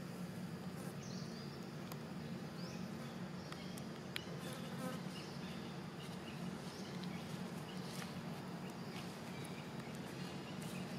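Steady low hum, with a few short high chirps in the first few seconds and faint clicks about four seconds in.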